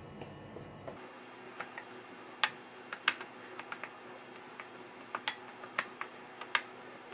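Metal spoon stirring dry chilli flakes, shrimp paste and ground dried shrimp in a bowl: a gritty scraping with irregular sharp clicks of the spoon against the bowl, loudest about two and a half and three seconds in.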